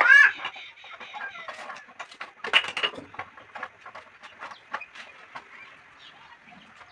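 A chicken clucking with a short call right at the start, followed by scattered light clicks and knocks, the loudest of them about two and a half seconds in.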